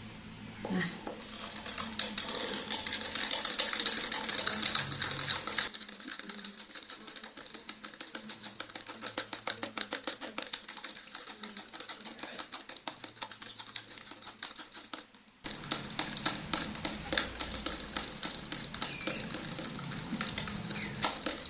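A spoon stirring sugar into a jug of fresh orange juice, clinking against the sides in a fast, steady run of small clicks, with a brief break about fifteen seconds in.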